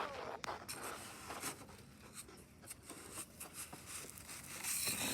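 Faint scattered crunches and clicks of snow and ice being handled.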